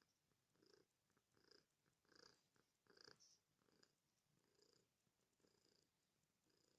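Domestic cat purring faintly, the purr swelling and easing in a steady rhythm of about one pulse every 0.8 seconds as the cat breathes in and out.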